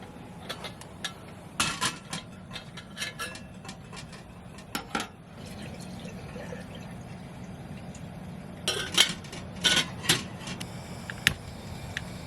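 Dishes, cutlery and glassware clinking and clattering as they are handled, in two busy clusters of sharp knocks, over a steady low hum.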